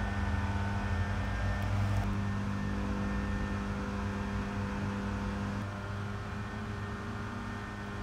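Aries 12-inch three-speed table fan running: a steady motor hum under the rush of air from the blades. The sound shifts slightly about two seconds in and gets a little quieter near the six-second mark.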